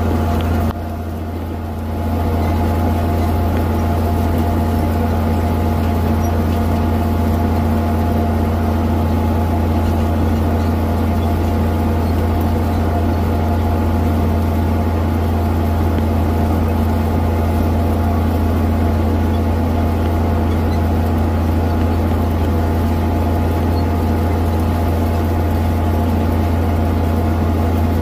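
Farm tractor engine running steadily with a strong low hum, heard close to the hood and exhaust stack as the tractor drives across the field pulling the planter. The sound drops slightly for about a second near the start, then comes back to its steady level.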